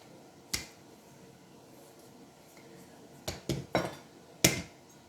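Kitchen utensils knocking and clinking on a counter: one sharp knock about half a second in, a quick run of three a little after three seconds, and a louder knock near the end.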